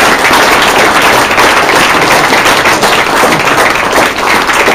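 Audience applauding loudly, a dense patter of many hands clapping, some of them right beside the microphone.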